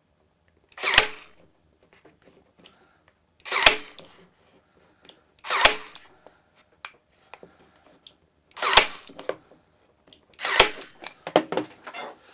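Parkside cordless nail gun firing nails into a pine board, five sharp shots a few seconds apart, each with a brief rattle after it.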